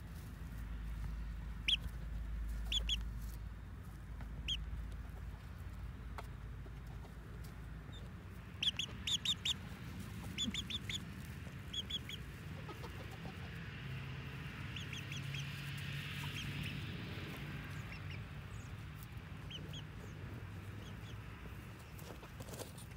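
Chickens clucking, with short high calls dotted about, a quick run of four about nine seconds in and a busier stretch around fifteen to sixteen seconds.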